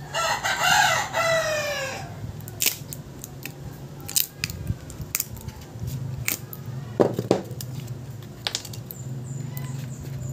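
A rooster crows once, loudly, for about two seconds. Then come scattered sharp clicks and taps as a smartphone battery is pried out with a plastic pick and set down on a table.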